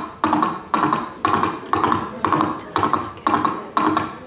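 Foley hoofbeats of a galloping horse: each stride a quick cluster of hoof strikes, repeating steadily about twice a second.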